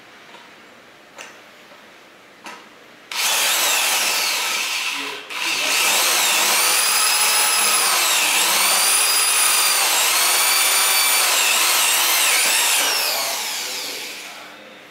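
Corded electric drill driving a 3½-inch self-drilling screw into galvanized steel C-channel. The motor starts about three seconds in and stops briefly near five seconds. It then runs again for about seven seconds, its whine dipping and recovering in pitch under load, before winding down.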